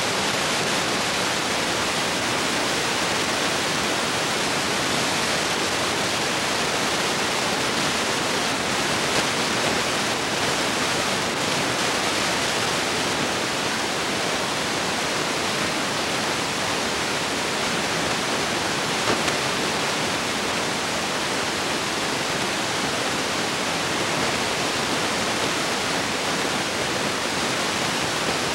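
Steady, even hiss with nothing else in it but two brief clicks: the empty sound track of a silent film transfer.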